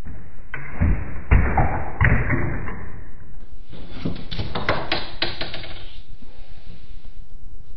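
A few sharp knocks and thumps, followed by a quick run of tapping clicks.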